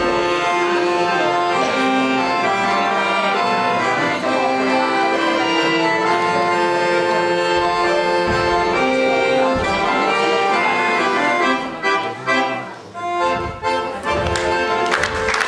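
Accordion playing a traditional folk dance tune, held chords under a running melody. About twelve seconds in, the playing breaks into short, separated phrases.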